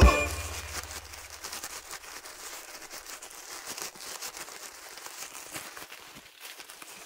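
Nylon hammock fabric rustling and crinkling in light, irregular crackles as the camouflage sleeve is bunched and pulled by hand. A music track's last chord dies away in the first second.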